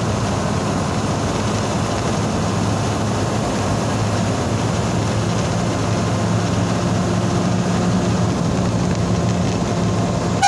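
Steady running noise of a motor vehicle: an even engine hum under a wash of road noise, unchanging throughout.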